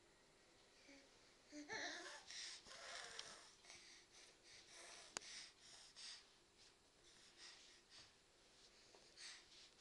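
A baby's breathy huffing and soft babbling in short bursts while crawling, with one sharp click about five seconds in.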